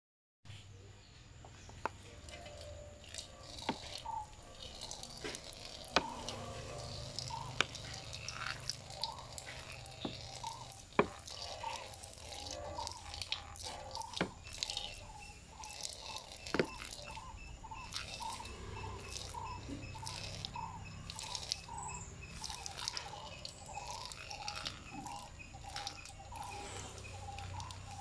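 A urine stream splashing into a cooking pot, with sharp splats scattered through it as the liquid hits the pot and pools.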